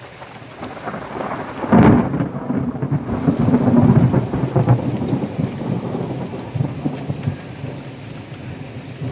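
Thunder over steady rain: a sudden loud clap about two seconds in, then rolling rumbles that swell again and fade away over several seconds.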